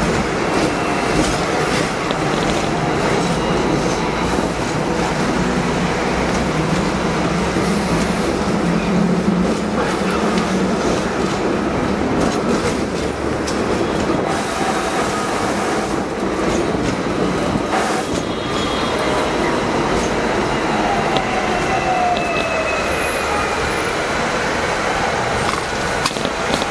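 Hong Kong double-decker electric tram running on street track, heard from on board: a steady rumble and rattle of the car and its wheels on the rails. A low motor hum comes in about a quarter of the way through, with a few sharp knocks past the middle and a faint falling whine later on.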